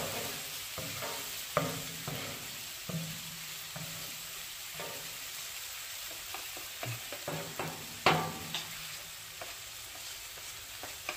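Chicken and peppers sizzling on a Pit Boss flat-top gas griddle, with a wooden spatula scraping and pushing the food across the cooking plate in a few short strokes. The loudest scrape comes about eight seconds in.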